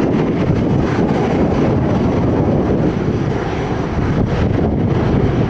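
Boeing 777 jet engines running, a loud steady rumble.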